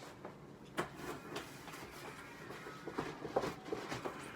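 Sneaker shoebox being handled and opened: scattered light cardboard knocks and rustling, about half a dozen short sounds.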